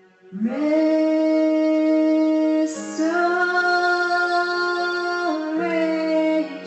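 A woman singing three long held notes, each changing pitch with a short slide, over soft sustained accompaniment chords.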